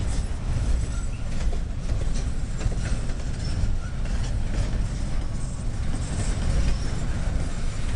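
Train cars rolling past at close range: a steady low rumble with the wheels clicking over rail joints.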